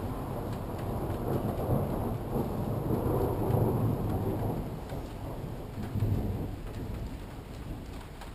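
Rolling thunder rumbling over steady rain, growing to its loudest around the middle, swelling once more about six seconds in, then dying away.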